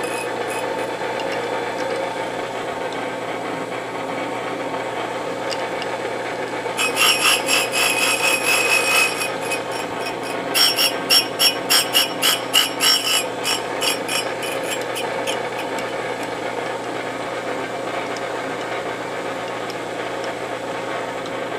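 Surface grinder running steadily, its wheel grinding a steel block while the table is cranked under it by hand. About 7 seconds in, and again about 10 seconds in, there are louder bursts of pulsing, scratchy grinding as the wheel bites into the block.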